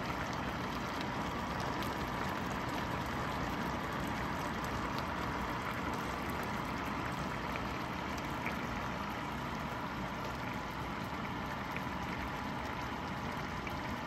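A pan of cookup rice simmering in its liquid: a steady bubbling hiss with small scattered pops.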